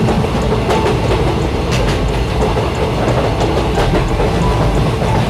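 Passenger train running: a steady rumble of the coaches with the wheels clicking in pairs over the rail joints every second or two.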